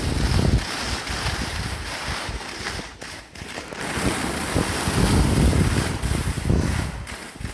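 Wind buffeting a phone microphone carried by a downhill skier, with the hiss of skis sliding over groomed snow. It comes in gusts, dipping briefly about three seconds in and again near the end.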